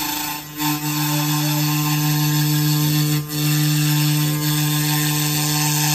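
A 5-axis CNC router's liquid-cooled HITECO spindle running with a steady whine while its long bit cuts a foam block with a constant hiss. The sound drops out briefly twice, about half a second and three seconds in.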